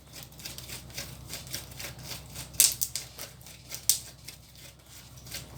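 Slime being stirred and worked by hand, a run of small sticky clicks and pops, with two sharper clicks about two and a half and four seconds in.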